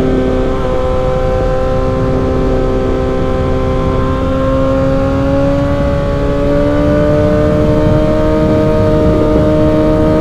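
Suzuki GSX-R1000 inline-four motorcycle engine through a Yoshimura M4 exhaust, running at a steady speed under way, its pitch climbing slowly as the bike gently gains revs, over a steady rush of wind.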